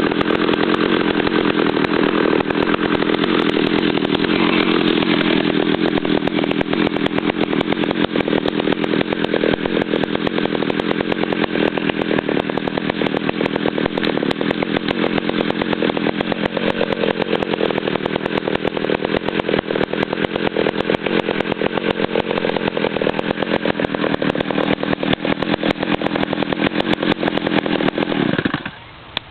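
Homelite 330 chainsaw's two-stroke engine running steadily on its first run after a new carburettor rubber boot, nitrile fuel line, pulse line and lube line. It shuts off near the end.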